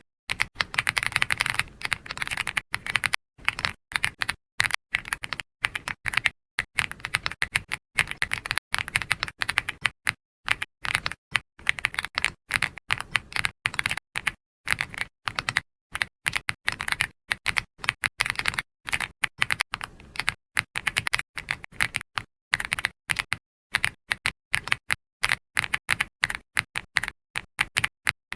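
Continuous typing on a computer keyboard: rapid, irregular keystroke clicks in runs, with brief pauses between them.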